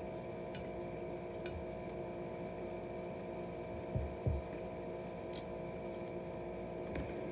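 Quiet eating with a plastic fork at a plate over a steady electrical hum: a few faint clicks, and two short, soft low thumps about four seconds in.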